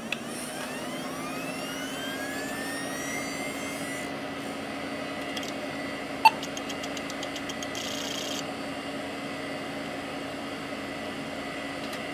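Desktop computer powering on: its fans spin up with a rising whine and settle into a steady hum, a single short POST beep sounds about six seconds in, and a brief run of rapid hard-drive clicking follows.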